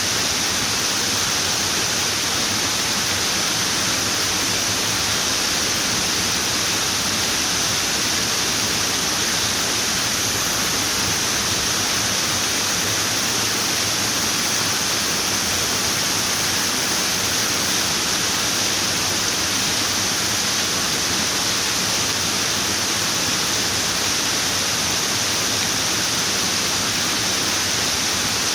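Running water, a steady, unbroken rush with most of its energy high up.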